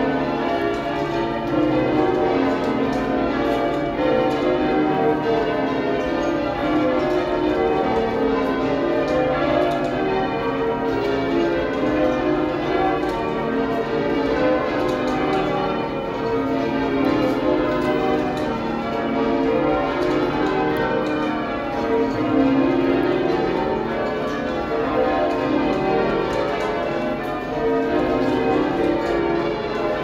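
Change ringing on York Minster's heavy ring of twelve church bells, cast in 1925, with a tenor of about 59 cwt, heard from the ringing chamber beneath them. A continuous stream of overlapping deep, boomy bell strikes.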